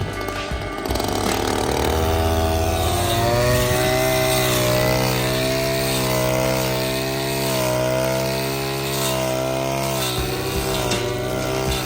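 Lawn mower's small petrol engine running steadily. Its speed picks up about a second or two in, then rises and dips slightly.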